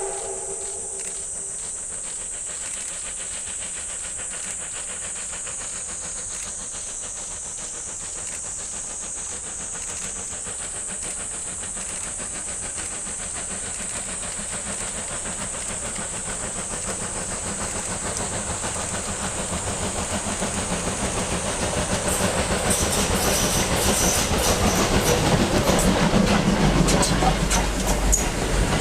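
JNR Class D51 steam locomotive working hard up a grade: a steady rapid chuffing from its exhaust, with hissing steam, growing louder as it approaches and loudest near the end.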